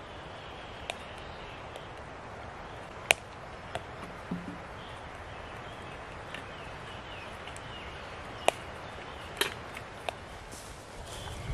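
Wood fire burning in a small wood-burning camp stove: a steady low hiss with a few sharp crackling pops at irregular intervals.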